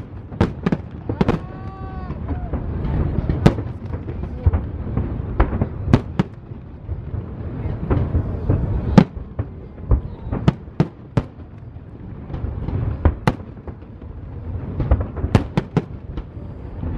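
Aerial fireworks shells bursting in quick succession: sharp cracks and booms over a continuous low rumble, with the loudest reports about three and a half, six, nine and thirteen seconds in.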